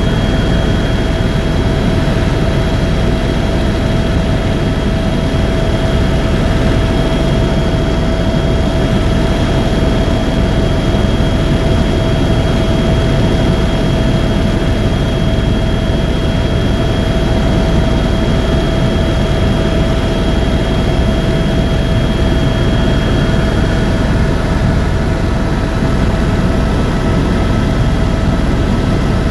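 Helicopter in flight: a loud, steady engine and rotor drone with a constant high whine over it.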